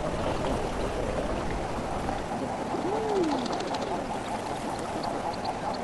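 A dense flock of common eiders calling: a steady hubbub of many birds, with drawn-out cooing calls that rise and fall in pitch, one clearer than the rest about three seconds in.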